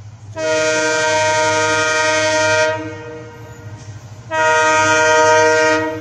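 WDP4D diesel locomotive's horn sounding two loud, long blasts, each a chord of several steady tones. The first lasts a little over two seconds, the second about a second and a half, as the train approaches.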